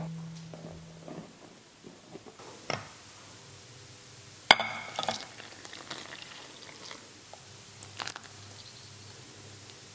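Quiet household handling sounds: a few scattered small clicks and knocks, the loudest a sharp clink with a short ring about four and a half seconds in. Background music fades out in the first second.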